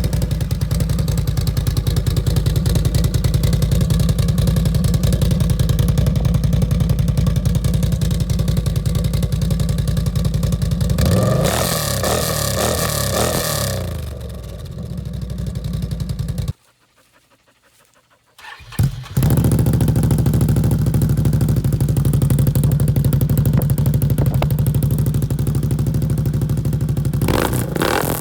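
Can-Am ATV engine with an aftermarket exhaust idling, with a single rev up and back down about 11 seconds in. A brief quiet gap follows near the middle, then the engine is heard idling again.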